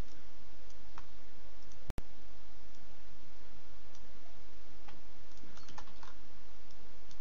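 A few faint computer mouse and keyboard clicks over a steady background hiss. The clicks come singly, with a quick cluster near the end. The hiss cuts out for an instant about two seconds in.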